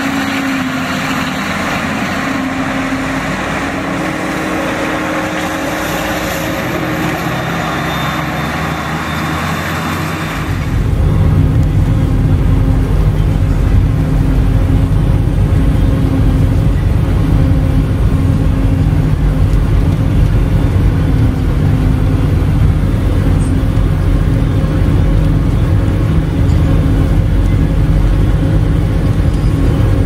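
CLAAS Jaguar 980 forage harvester running steadily while chopping corn. For about the first ten seconds it is a steady hissing rush; about ten seconds in it changes suddenly to a louder, deep, steady rumble of the engine and chopper heard from inside the cab.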